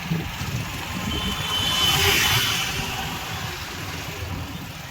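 Motorcycle engine running as the bike passes, swelling to its loudest about two seconds in and then fading.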